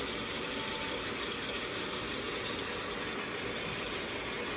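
ROEST sample coffee roaster running mid-roast, its fan giving a steady hiss of moving air.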